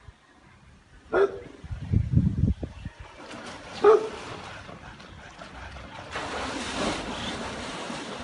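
A tiger splashing hard through shallow pool water, with a rushing wash of splashes about six seconds in. Two short bark-like calls come about one and four seconds in, and there are low rumbling bumps around two seconds in.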